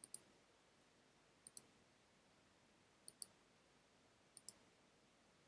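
Four faint computer mouse clicks, each a quick double tick of the button going down and coming back up, about a second and a half apart.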